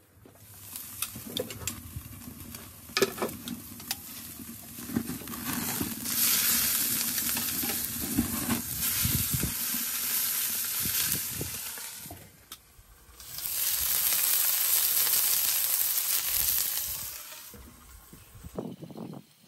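Ribeye steaks sizzling hard on hot cast iron over lump charcoal, in two loud spells with a short break between them. There is a sharp knock about three seconds in.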